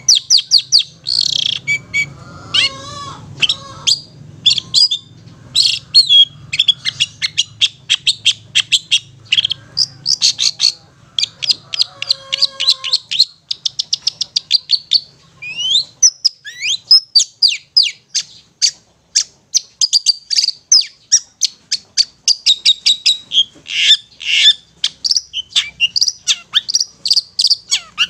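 Long-tailed shrike singing in its rapid 'ngetet' style: a fast, dense run of short, sharp, high chattering notes, several a second, broken by brief pauses.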